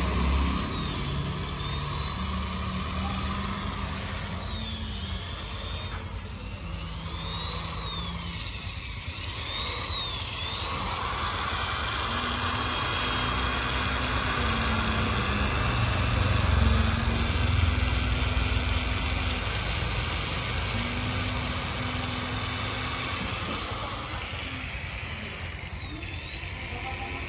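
Corded electric drill spinning a wire brush against an engine block, scrubbing off caked grime: a steady motor whine over a continuous rough scrubbing noise.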